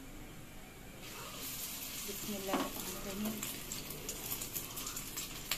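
An egg-dipped shami kabab sizzling and crackling in hot oil on a flat griddle (tawa). The sizzle starts about a second in, when the patty is laid down.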